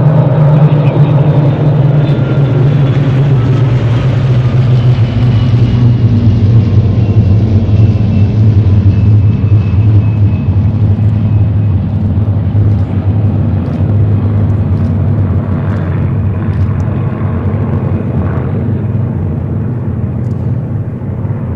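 A massed formation of Second World War single-engine piston fighters flying past: the deep, steady drone of many engines together, its pitch sliding slowly down as they go by. It fades gradually toward the end.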